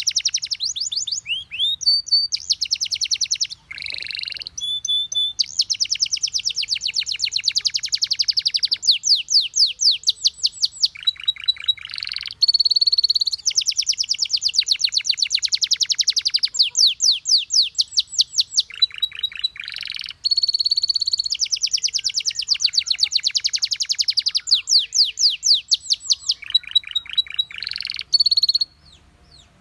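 Domestic canary singing a long, nearly unbroken song made of fast trills of rapidly repeated notes alternating with steady held whistles; the song stops shortly before the end.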